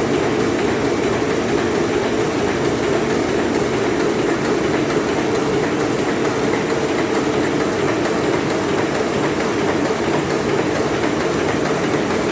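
Steady mechanical running noise with a regular light clicking.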